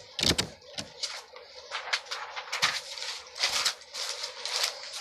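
A stack of paper sheets rustling and flapping as it is handled and leafed through, in a run of irregular swishes, the loudest about a quarter second in.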